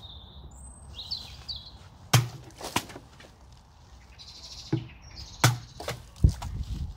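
Sharp strikes and knocks of a machete blade hitting drink cans stacked on a wooden stand, the loudest about six seconds in as a full can is slashed open and bursts, followed by a short rush of spraying. Birds chirp before the strikes.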